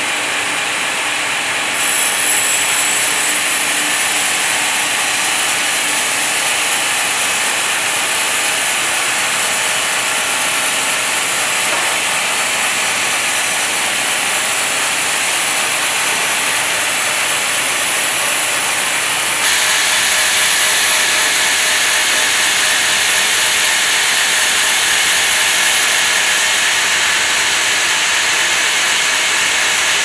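Sawmill band saw running through a teak log: a steady, loud hiss of the blade in the cut, its sound changing abruptly about two seconds in and again about two-thirds of the way through.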